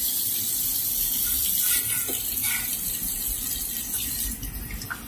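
Water from a tap running steadily into a ceramic washbasin while a child washes his hands under the stream.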